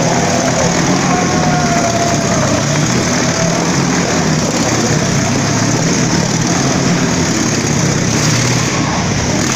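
Motorcycle engines running hard and steady as the bikes ride round a Wall of Death drum.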